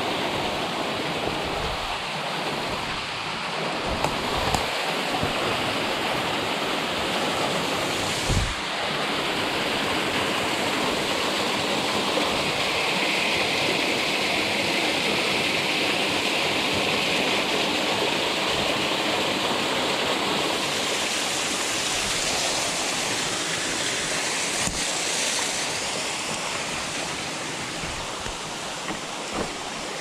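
Small waterfall splashing off a rock ledge into a shallow pool: a steady rush of falling water, with a few low thumps in the first several seconds.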